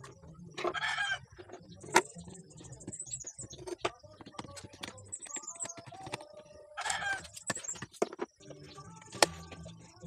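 Sharp clicks and knocks of a screwdriver and metal parts as a ceiling fan's motor housing is taken apart. Chickens cluck in the background twice, about a second in and again near the end.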